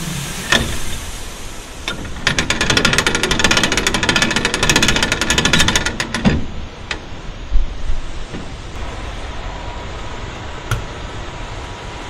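Wheat hissing as it pours out of a Timpte hopper-bottom grain trailer through the pit grate. About two seconds in this gives way to a fast metallic rattle lasting about four seconds as the hopper gate is cranked shut. A few single knocks follow, the loudest near the middle.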